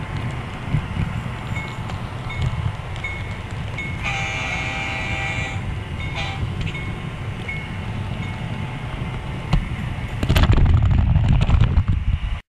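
Model train running on its track, its wheels giving a steady low rumble, with short high dings repeating now and then. About four seconds in, the locomotive's sound system blows its horn once for about a second and a half. The rumble grows louder near the end, then the sound cuts off abruptly.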